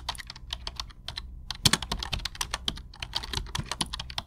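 Computer keyboard typing: a quick, irregular run of key clicks.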